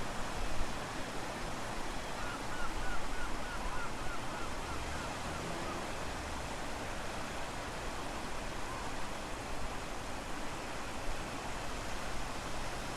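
Strong wind and ocean surf making a steady rushing noise, with wind rumbling on the microphone. About two seconds in comes a short run of a dozen or so quick high chirps.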